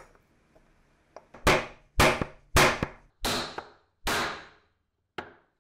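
A hammer striking a wooden drift to drive a part down into the aluminium gear housing of a Makita HM0810 hammer drill: five sharp blows about half a second apart, each ringing briefly, then a lighter tap near the end.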